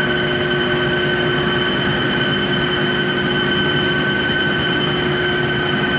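Steady loud drone of electric pump motors running in a chiller plant room, a constant machine whine over a noisy rumble.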